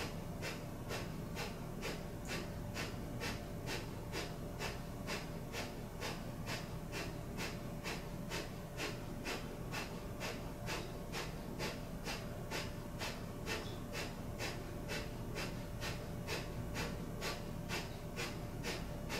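Breath of fire, the Kundalini yoga pranayama: rapid, shallow breathing through the nose in an even rhythm of about two to three short puffs of air a second.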